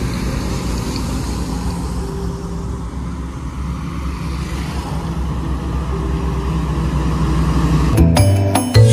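Highway traffic: motor vehicle engines running with a steady low rumble that grows a little louder toward the end. Music cuts in about a second before the end.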